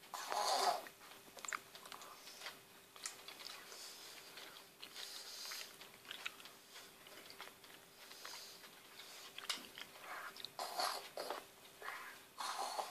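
A young child eating rice straight off a plate with his mouth, face down in the food: irregular chewing and munching sounds close up.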